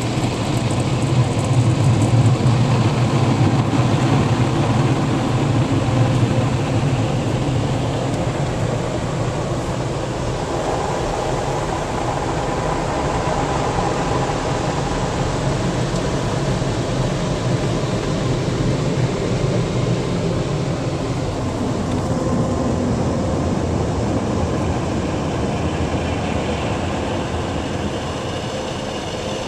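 Automatic car wash air dryer blowers running steadily, heard from inside the car as they blow water off the windows. The noise is loudest in the first few seconds, eases slightly about seven seconds in, and its deep low part drops away a little after twenty seconds.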